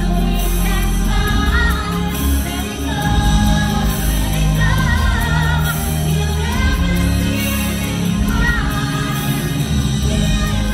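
Music: a song with a singing voice over a steady bass line.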